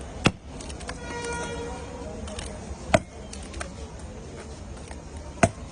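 Three sharp knocks, evenly spaced about two and a half seconds apart, over a steady low background rumble.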